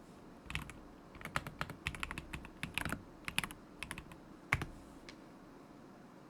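Typing on a KZZI K75 Pro mechanical keyboard with Moment linear switches: a short run of key clacks that stops about five seconds in.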